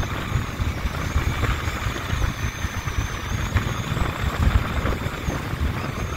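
A vehicle driving along: engine and road noise with an uneven low rumble.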